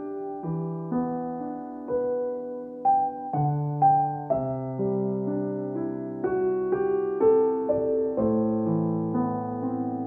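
Calm, slow piano music, with notes and chords struck about once or twice a second and left to ring.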